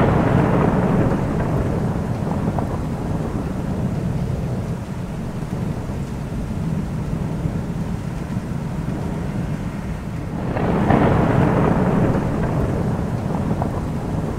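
Thunderstorm with steady rain and rolling thunder: a rumble at the start eases off over the first few seconds, and a second peal swells about ten and a half seconds in.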